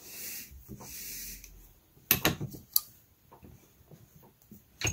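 Warp threads and woven band sliding over a wooden tablet-weaving loom as the work is shifted down, in two rubbing strokes, followed by a few sharp knocks on the wood about two seconds in and another near the end.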